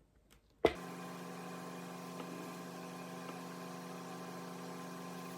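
A click less than a second in, then a steady electrical hum with several held tones that starts abruptly and stays even.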